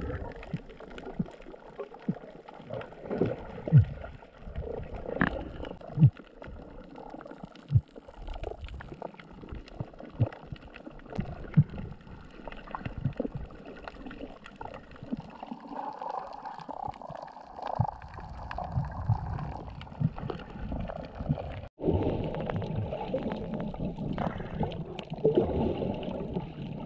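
Underwater sound picked up by a camera: muffled sloshing and gurgling water with scattered sharp knocks and clicks. About 22 seconds in the sound breaks off abruptly and turns into a steadier, denser rush of water.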